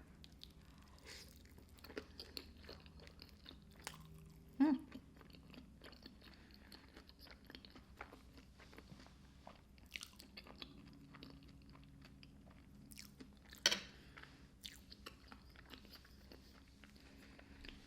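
Close-miked chewing of fettuccine alfredo topped with crushed hot Cheetos: faint, wet crunching and mouth clicks, with two short louder sounds about four and a half and fourteen seconds in.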